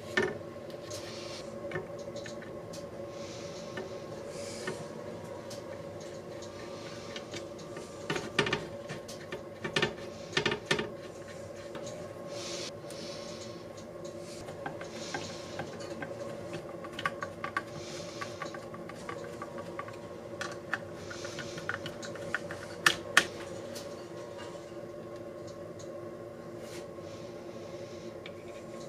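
Small metal screws and washers clicking and tapping as they are handled and fitted into a wooden saw handle, with a few louder clicks around the middle and two sharp ones close together near the end. A steady background hum runs underneath.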